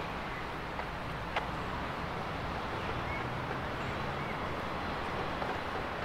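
Street traffic ambience: a steady hum of road vehicles with one sharp click about a second and a half in.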